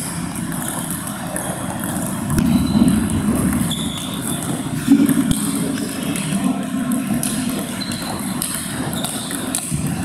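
Table tennis balls clicking off rackets and tables in quick, irregular succession, from several tables in play at once, over a steady low hum.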